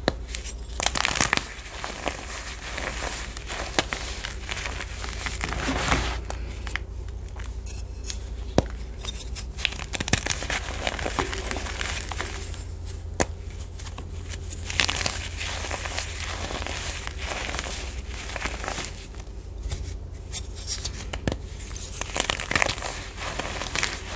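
Reformed BSN gym chalk crushed by hand: dry crunching and crackling in repeated bursts, with sharp snaps as chunks break apart and softer rubbing of the loose powder between squeezes.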